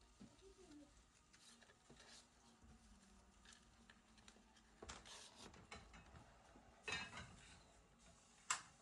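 Faint, scattered rustles and scratches of dry hay as a mother rabbit moves about in her hay-filled cardboard nest box, with a sharper scrape near the end.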